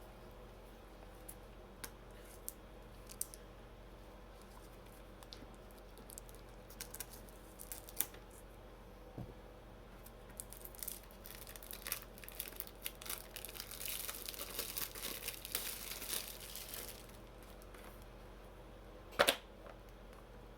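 Plastic wrapping being torn and crinkled off a sealed VHS tape, with scattered light clicks and taps. The crinkling is densest about two thirds of the way in, and one sharper crackle comes shortly before the end.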